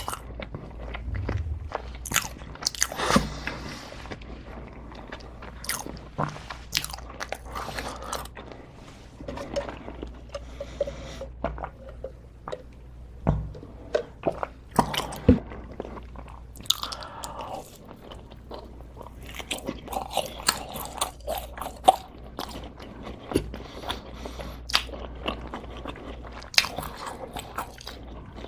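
Close-miked biting and chewing of crunchy food, with many irregular sharp crunches and crackles throughout.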